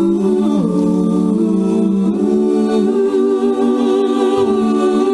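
Small mixed choir of men's and women's voices singing a slow song in held chords, the notes changing together every second or two.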